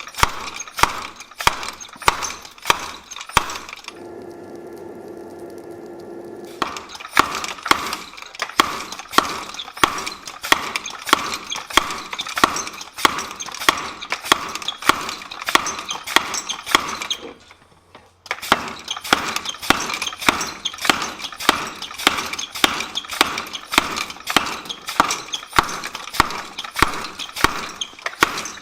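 A treadle hammer pounding a large piece of forge-hot steel from a bulldozer, a steady run of ringing metal-on-metal blows about two to three a second. The blows stop for a couple of seconds about four seconds in while a steady hum sounds, and break off again briefly about seventeen seconds in.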